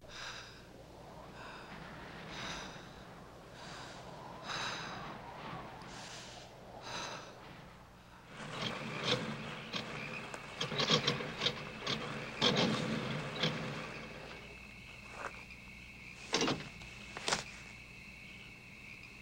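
Night ambience of insects and crickets chirping in short repeated bursts. From about eight seconds in, a car drives up, its engine and tyres running for several seconds. After that the crickets chirp steadily, and two sharp knocks come near the end.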